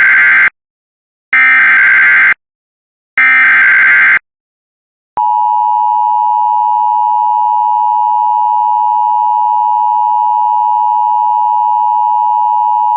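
Emergency Alert System SAME header: the tail of one burst of digital data tones, then two more bursts about a second long each, with short gaps between. About five seconds in comes the EAS attention signal, a steady two-tone 853 and 960 Hz tone held at an even level for about eight seconds.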